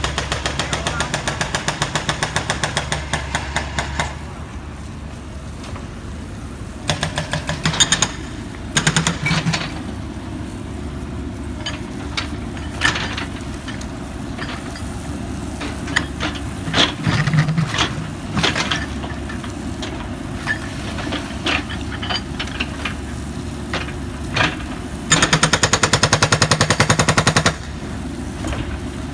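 Pneumatic jackhammer breaking material on a construction site, running in bursts of rapid hammering a few seconds long: one at the start, short ones around a quarter of the way in, and a longer one near the end. Scattered knocks and a steady low rumble fill the gaps between.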